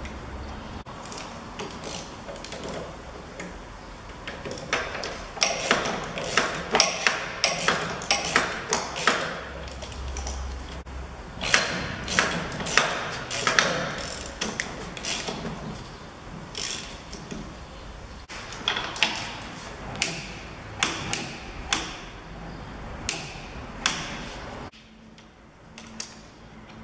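Ratchet clicking in irregular runs of sharp clicks as the suspension drop link's nut is run up on the strut.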